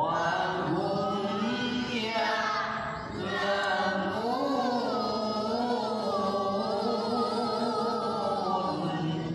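Quranic recitation in melodic tilawah style, chanted in Arabic with long held notes and wavering, ornamented pitch. There is a short break in the phrase about three seconds in.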